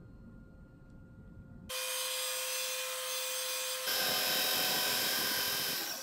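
A 2x72-inch belt grinder cuts in suddenly about two seconds in, running with a steady whine and hiss. About four seconds in, the edge of a steel plate goes against the belt and a louder grinding joins.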